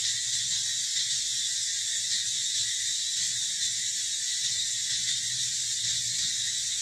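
Steady, high-pitched drone of an insect chorus in the trees, unbroken throughout.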